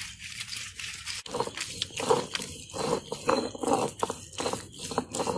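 Stone roller of a traditional grinding stone (ammi) rolled back and forth over a coarse, wet chutney paste: rough scraping and crunching strokes. From about a second in the strokes come louder, at about two a second.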